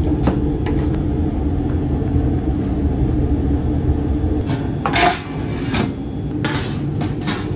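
Metal tongs clinking and scraping in a stainless steel steam-table pan of shredded beef, then stainless lids clattering as they are lifted about five seconds in. Under it runs a steady low hum of kitchen equipment.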